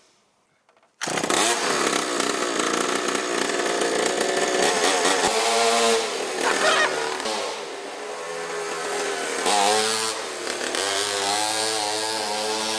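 Pocket bike's small engine starting up about a second in and being revved, its pitch rising and falling several times as the throttle is opened and closed.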